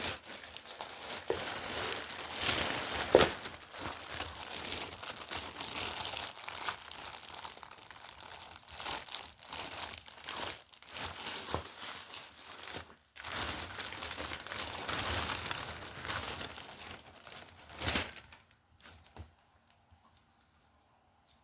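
Plastic packaging crinkling and tearing as a parcel of clothes is unwrapped, with a couple of sharper rips. The rustling stops a few seconds before the end.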